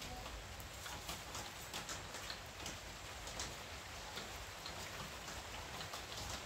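Rain falling: a steady hiss with many scattered ticks of single drops striking.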